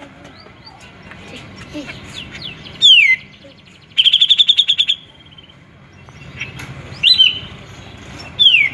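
Grey-cheeked bulbul (cucak jenggot) singing in loud, separate phrases. A whistle slurs steeply downward about three seconds in and again near the end, and a fast rattling trill of about a dozen notes comes at about four seconds. A sharp upward note follows at about seven seconds.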